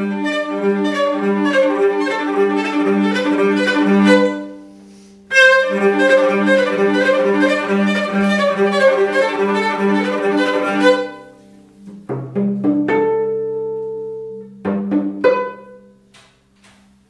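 Solo cello played with the bow: a fast run of evenly repeated notes over a recurring low note. The run breaks off about four seconds in and starts again a second later. After about eleven seconds it gives way to a few separate notes and a held chord, then stops.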